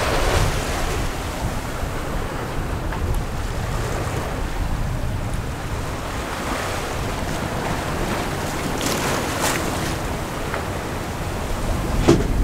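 Water rushing along the hull of a sailing yacht under way on open sea, with wind buffeting the microphone. A few louder wave splashes stand out, the last near the end.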